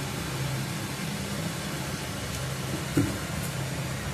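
Steady low mechanical hum with an even hiss, like a motor or fan running, and one short click about three seconds in.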